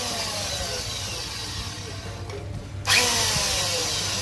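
Small electric power tool plugged into a step-down transformer's 100 V outlets to show they give power, its motor whine falling as it coasts down. About three seconds in it is switched on again, comes up to speed at once and starts winding down.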